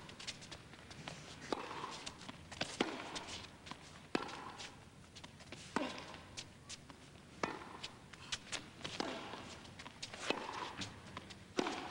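Tennis rally in an indoor arena: sharp racket strikes on the ball and ball bounces on the court, roughly every one to two seconds, over a low hum of background noise.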